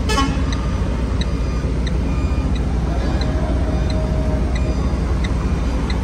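Truck diesel engine running, a steady low rumble heard from inside the cab. Over it, a short high beep repeats about every two-thirds of a second, typical of a reversing alarm on a truck manoeuvring in a loading yard.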